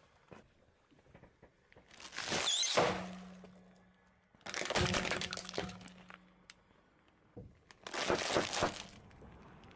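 Things being crushed under a car's tyre, crunching and breaking in three separate bursts of a second or so each.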